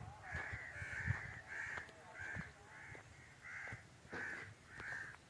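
A bird calling repeatedly outdoors, short calls about twice a second, with a few faint knocks underneath.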